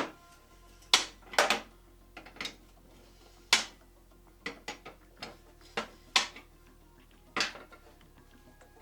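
Sharp metallic clicks and clanks from a wrench on the exhaust as the oxygen (O2) sensor is worked loose, coming singly at uneven gaps of about a second.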